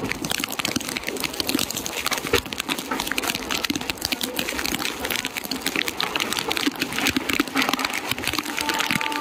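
Heavy rain and rushing wind at the open door of a moving passenger train: a steady, dense crackling hiss, with the train's running noise beneath it.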